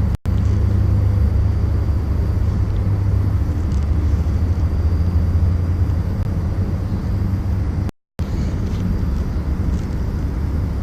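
Wind rumbling on the camera microphone: a steady low noise that cuts out briefly twice, just after the start and about eight seconds in.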